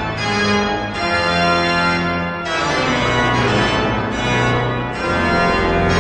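Pipe organ playing loud, sustained full chords over a deep pedal bass, moving to a new chord about once a second.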